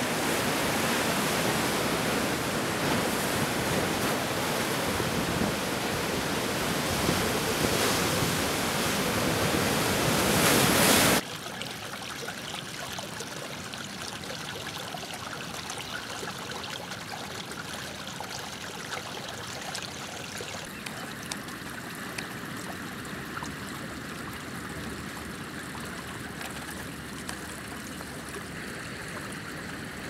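Sea surf churning into white foam around rocks, a steady loud rush of water. About eleven seconds in it cuts off suddenly to a quieter, finer trickle of running water.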